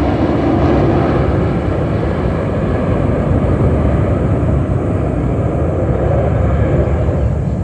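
Jet aircraft flying past: a loud, steady engine rumble.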